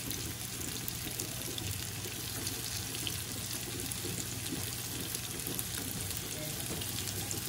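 Tofu cubes frying in hot oil in a wok: a steady sizzle with fine crackling, the tofu already golden and crisp.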